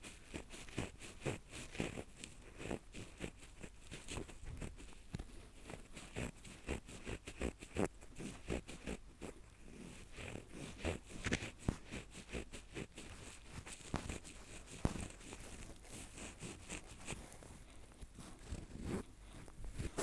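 Close-miked scratching and scraping of an ear pick working in an ear: dense, irregular crackling strokes, some louder than others.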